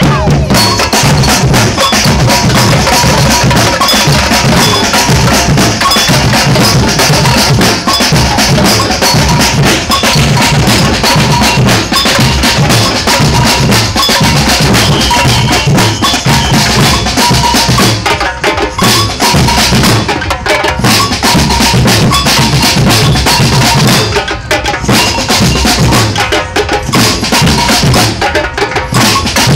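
A samba drum band playing: deep surdo bass drums beating a steady pulse under stick-played snare and other percussion. The rhythm breaks off briefly a few times in the last third and comes back in.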